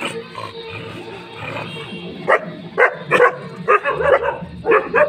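Dog barking in a quick run of short, sharp barks, two to three a second, starting about halfway through, over background music.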